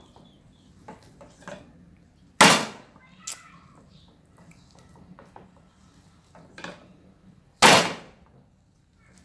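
Two sharp, loud knocks about five seconds apart, each ringing briefly, with lighter taps and clatter between them.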